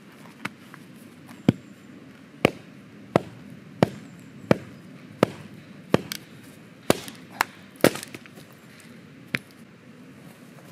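Hatchet lodged in a cedar round, knocked down again and again onto a stump chopping block to drive the split: about a dozen sharp wooden knocks, one or two a second, as the round starts to crack apart.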